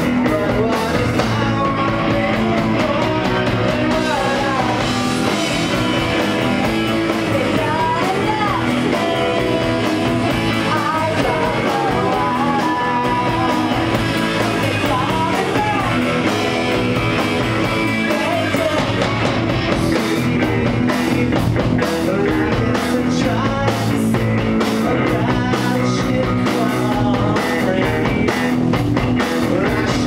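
A punk rock band playing live, guitar-driven and loud and steady, with a voice singing over it for much of the stretch.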